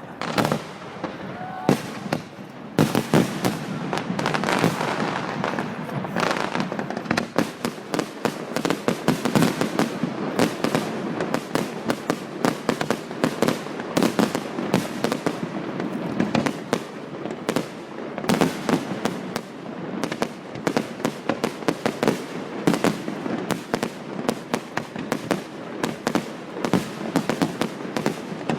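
Fireworks display: a dense, continuous barrage of bangs and crackling, growing thicker about three seconds in.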